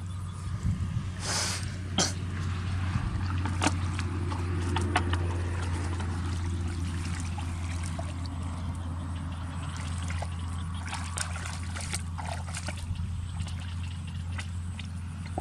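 Water trickling and splashing, with a short splash about one and a half seconds in and scattered small clicks and knocks, over a steady low hum.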